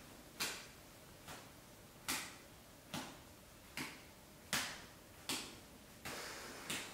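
Two juggling balls landing in the palms as they are thrown and caught hand to hand, each catch a short soft smack, in an even rhythm of a little more than one a second.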